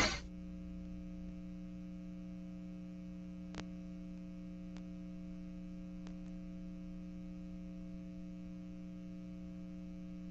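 Steady low electrical mains hum from the VHS tape playback and transfer, with a few faint ticks around the middle.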